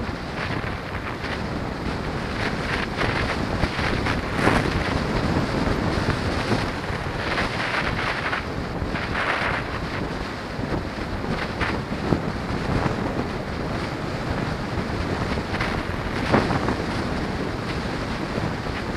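Wind rushing over the microphone of a camera on a moving bicycle: a steady rough rush with a few short louder gusts, the clearest about four seconds in and again near sixteen seconds.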